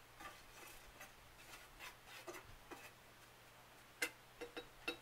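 Faint scraping and light ticking of a stick stirring melted wax in a metal pot, with a few sharper taps about four seconds in and near the end.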